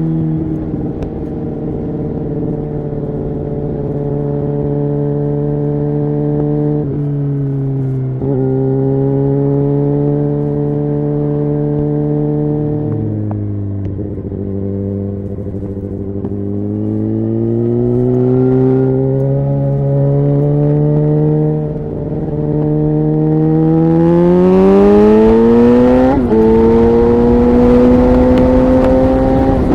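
Suzuki GSX-R 750 inline-four running through a Yoshimura exhaust under way, changing gear a few times along the way. Near the end the engine note climbs steadily under hard acceleration, drops sharply at a gear change, then holds higher, with rushing wind building at the same time.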